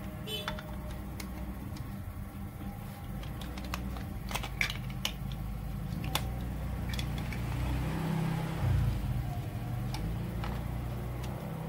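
Plastic building-block marble run pieces clicking and clattering as they are handled and pressed onto the base plate, with scattered sharp clicks and a small cluster about four to five seconds in, over a steady low background hum.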